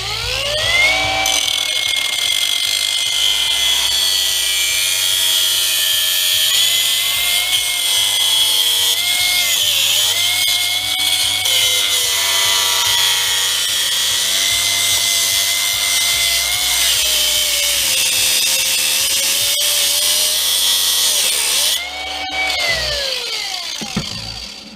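Electric power cutting tool spinning up and cutting into a jump starter pack: a steady high motor whine that dips in pitch each time the blade bites into the material. It winds down about 22 seconds in, revs briefly once more, then stops.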